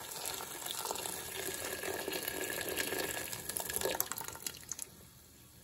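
Hot water from an electric kettle poured in a stream into a stainless steel pot over pieces of cholla wood, splashing steadily. The pour tails off with a few drips and stops near the end.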